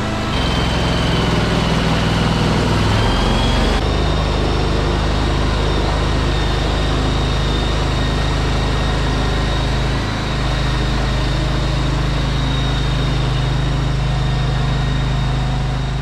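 Stand-on mini skid steer's engine running steadily right after a cold start in near-freezing weather, with a thin high whine over the engine note; the pitch steps up about four seconds in.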